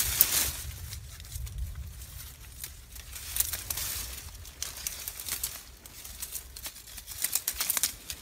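Dry leaves and twigs rustling and crackling in irregular bursts, thickest near the start and near the end, over a low rumble.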